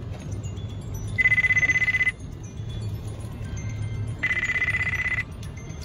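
An electronic trilling alert tone sounds twice, each about a second long and about three seconds apart, over the steady low hum of a car.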